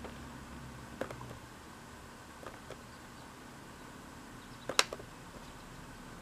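Faint steady room hum with a few short, sharp clicks, the loudest a quick double click about five seconds in.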